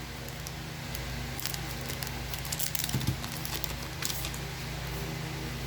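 Trading cards being handled and flipped through: light crinkling and a few small ticks, over a steady low hum.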